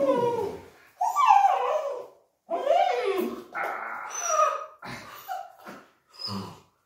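Young dog whining and yipping, a string of high cries that slide up and down in pitch with short gaps between them, as it jumps up at a person in excitement.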